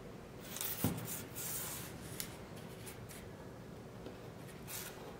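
Hands handling cotton macrame rope and a cloth tape measure on a tabletop: a light knock about a second in, then soft rustling and rubbing as the cord is drawn across the table, with a few small clicks.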